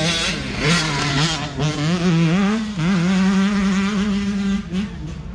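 Racing motorcycle engines revving hard, the pitch climbing in steps, dropping back and holding high as the bikes go past.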